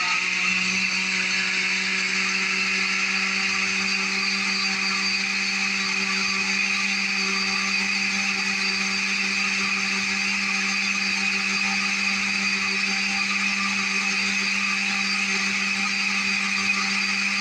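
Cuisinart countertop blender running at a steady speed, blending a fruit smoothie, its motor whine holding one even pitch.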